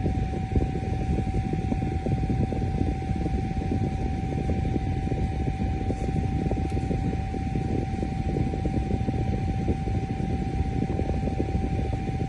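ELZO rechargeable mini USB desk fan running steadily, a constant motor whine over the rush of air.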